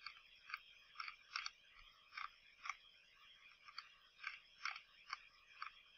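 Faint, irregular clicks, about two a second, some coming in quick pairs.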